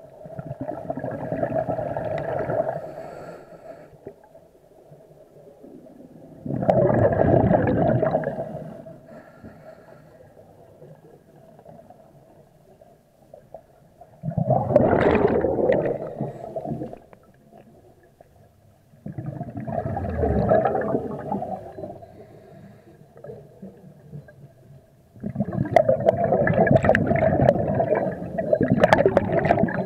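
Scuba diver breathing underwater through a regulator: exhaled air bubbles out in gurgling bursts of two to three seconds, about every five to six seconds, with quieter gaps between breaths. The last burst is longer.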